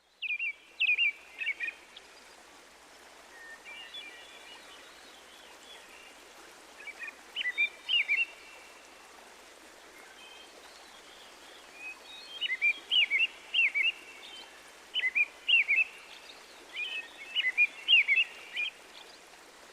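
Songbirds singing in short bursts of quick, high chirps every few seconds, over a steady background hiss.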